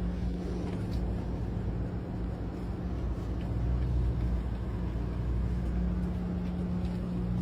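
Vehicle engine idling: a steady low rumble with a constant hum, growing slightly louder for a couple of seconds midway.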